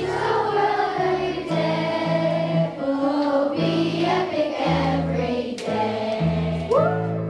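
A room full of schoolchildren singing a school song together, led by one girl on a microphone, over an instrumental accompaniment of held bass notes that change every half second or so.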